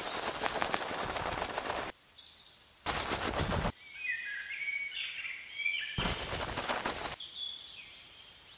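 Three bursts of rapid automatic gunfire, the first about two seconds long and the others shorter, with birds chirping in the quieter gaps between them.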